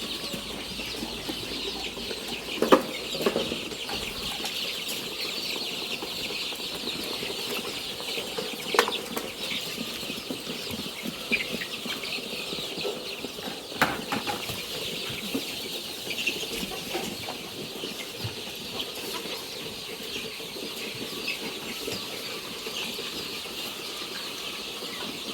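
A flock of four-week-old Bovans Brown layer chicks cheeping in a dense, steady, high-pitched chorus, with a few sharp knocks.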